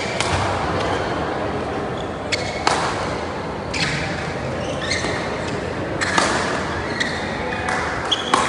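Badminton rally: sharp cracks of rackets striking the shuttlecock every second or two, ringing in a large hall over a steady murmur of the venue, with a few short squeaks that fit shoes on the court floor.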